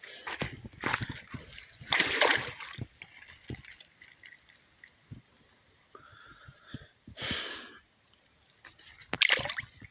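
Stream water splashing and sloshing in several short bursts, the loudest about two seconds in.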